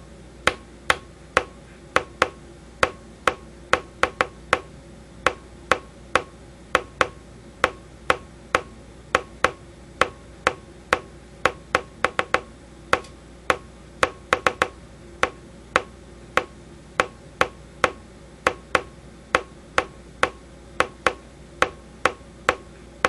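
A run of sharp clicks, roughly two a second in an uneven rhythm with some quick doubles, over a steady low hum.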